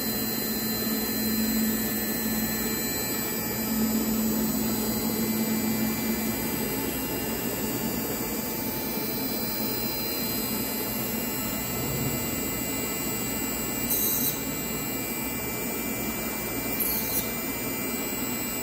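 Industrial machinery running steadily, a constant whir and hiss with several steady whining tones. A low hum swells twice in the first six seconds, and short sharp noises come about 14 and 17 seconds in.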